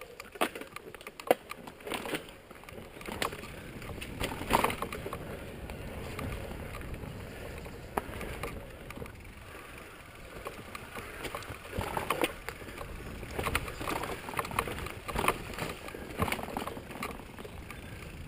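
Mountain bike rolling fast down a dirt forest trail: steady tyre and ground rumble broken by frequent irregular knocks and rattles as the bike jolts over bumps and roots, busiest about four seconds in and again in the second half.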